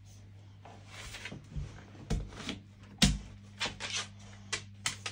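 A boxer dog's claws clicking and tapping on a wooden floor as it gets up and walks, with one sharp knock about three seconds in and the taps coming quicker toward the end.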